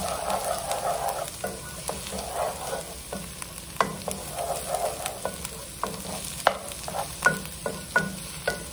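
Chopped onion, garlic and cumin frying in olive oil in a nonstick pan: a steady sizzle while a wooden spatula stirs and scrapes, with frequent irregular sharp taps of the spatula against the pan. The spices are being fried until fragrant.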